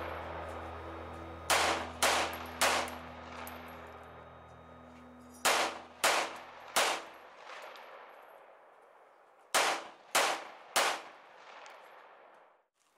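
Three strings of three gunshots, each string about half a second between shots, with a few seconds between strings. Each shot rings on and fades, clanging like hits on steel targets.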